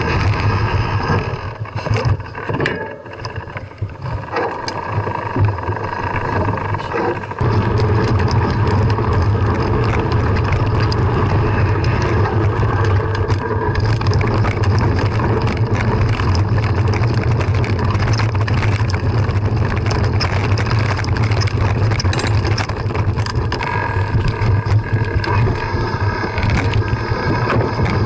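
Wind buffeting the microphone of a camera carried on a moving mountain bike, over tyre noise on a gravel trail with many small clicks and rattles. A steady low rumble sets in about seven seconds in and stays.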